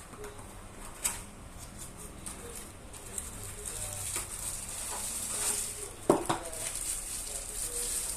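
Packaging and a small boat light being handled during unboxing: a rustle of plastic or wrapping, with a light click about a second in and a sharper knock about six seconds in.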